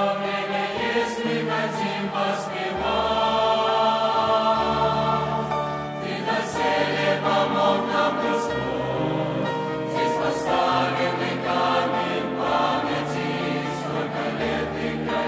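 Mixed youth choir singing a Russian hymn in slow, sustained chords, the notes held for a second or two each.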